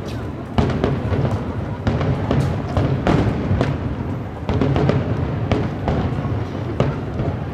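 Fireworks finale barrage: many booms and sharp cracks in quick succession, overlapping over a continuous low rumble.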